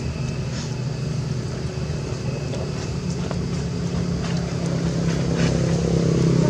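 An engine running steadily with a low hum, growing louder from about halfway through and more so near the end.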